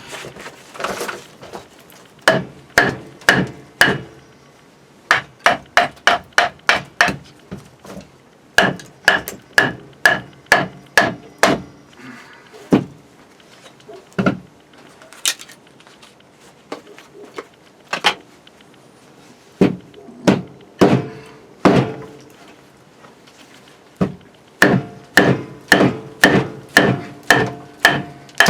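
A log being split by pounding a blade into it with a wooden stick. The blows come in runs of several strikes about two a second, each with a short ring, with brief pauses between runs.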